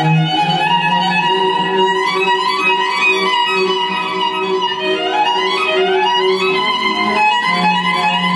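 Recorded music played over loudspeakers for a sound test: a sustained, violin-like bowed melody with notes sliding up in pitch, over a held low note.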